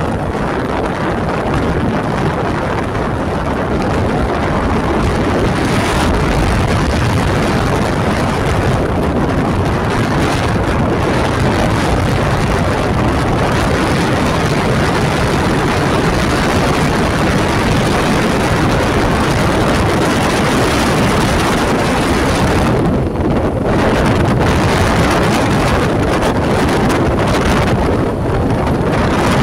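Loud, steady wind rush buffeting the microphone of a vehicle travelling along a road, with the vehicle's running and road noise underneath.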